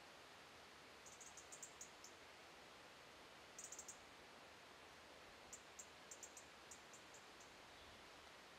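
Near silence: a steady hiss with faint, high-pitched ticks in short runs, about a second in, at about three and a half seconds, and again from about five and a half to seven seconds.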